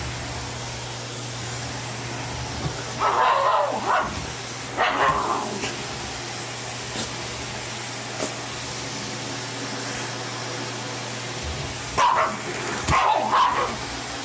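A vacuum cleaner running steadily while a black Shiba Inu barks at it in short bouts: a few barks about three seconds in, and another cluster near the end.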